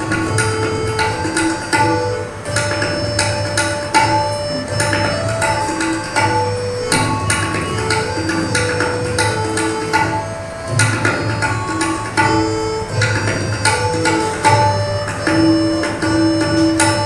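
Tabla solo: quick, dense strokes on the tabla pair, the bayan adding a low bass, played over a harmonium that repeats a short lehra melody of held notes.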